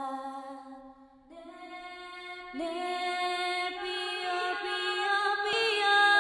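Slow, chant-like singing of a Dayak song: a voice holds long notes that slide between pitches. It fades briefly about a second in, then comes back stronger with a new held note.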